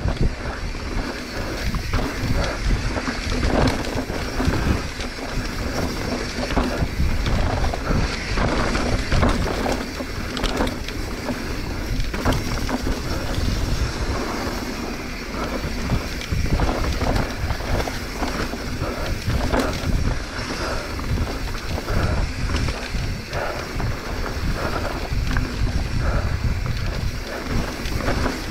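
Mountain bike descending a dirt singletrack: wind rumbling on the camera microphone, with tyres on the trail and frequent knocks and rattles from the bike over roots and rocks.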